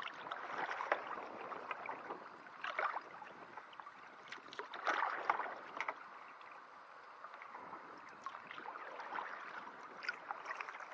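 Kayak paddle strokes: the blades dip and pull through calm canal water every second or two, with splashing and trickling in between.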